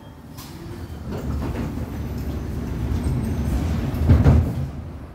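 Metro train running along a station platform, heard from inside the carriage: a low rumble that builds from about a second in, is loudest around four seconds in, then dies down.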